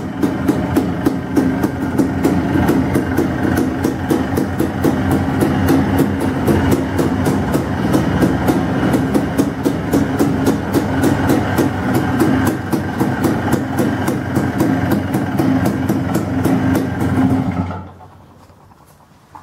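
2005 Yamaha Blaster YFS200's air-cooled 200cc single-cylinder two-stroke engine, freshly rebuilt, idling steadily through an FMF Powercore 2 exhaust with an even popping beat. Near the end it cuts off suddenly as the engine is shut off.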